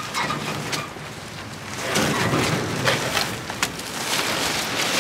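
A large woven-plastic bulk bag loaded with debris being dragged and heaved over stone paving: a rough rustling and scraping, quieter for a moment and then louder from about two seconds in, with a few sharp clicks.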